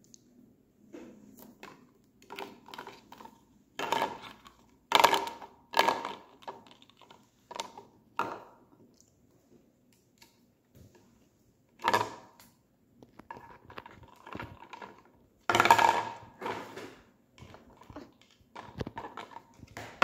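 Small plastic toys knocking and clattering on a hard tabletop as an Indian ringneck parrot pushes and picks at them with its beak: scattered knocks and scrapes, loudest about four to six seconds in and again near twelve and sixteen seconds in.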